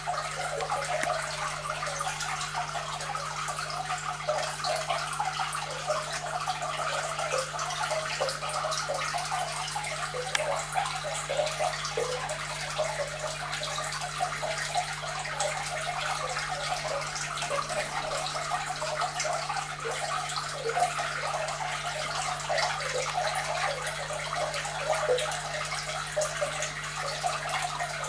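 Aquarium water bubbling and trickling steadily, with a constant low hum underneath.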